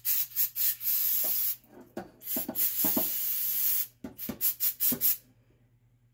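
Spray cleaner hissing in bursts as a disassembled nitro engine is sprayed clean: a few short spurts, two longer sprays of about a second each, then a quick run of short spurts before it stops about five seconds in.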